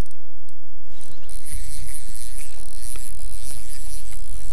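Wind rumbling on the microphone beside a small flowing stream, with a steady high-pitched insect drone coming in about a second in.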